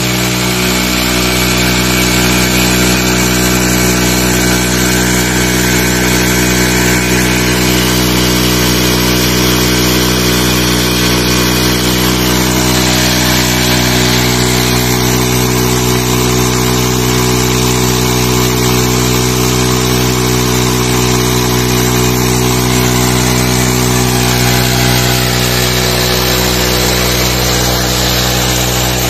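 Honda CD 70's small single-cylinder four-stroke motorcycle engine running steadily, driving a tubewell water pump.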